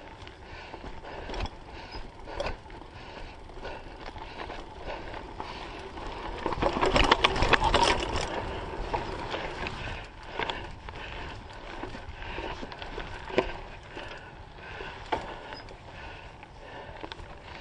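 Strong Frames Custom Blend mountain bike ridden on dirt singletrack: the chain and frame rattle and knock steadily over tyre noise. A denser, louder stretch of rattling comes about halfway through, with a few single sharp knocks after it.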